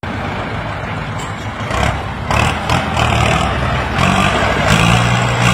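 Ford 6600 tractor's three-cylinder diesel engine running under load as the tractor pushes soil with a front dozer blade, with scraping and clatter from the blade. The engine note rises about four seconds in.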